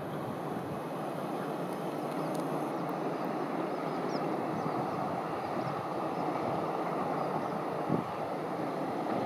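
Approaching freight train: the steady rumble of an EF66 electric locomotive and its container wagons on the rails, growing slightly louder as it nears. A single brief thump comes about eight seconds in.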